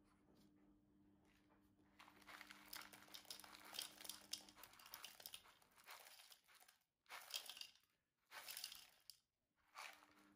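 Faint crinkling rattle of dry, dehydrated chicken pieces coated in desiccated coconut pouring from a plastic tub into a plastic jug. A few short bursts of rustling follow near the end as the tub is tipped and lifted away.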